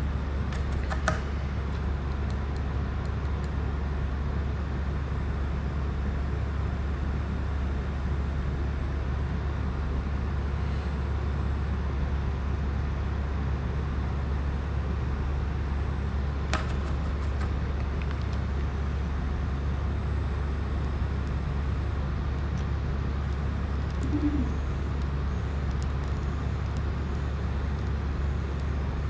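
Steady low hum of background noise, with a few faint clicks about a second in and again midway, and a brief low tone later on.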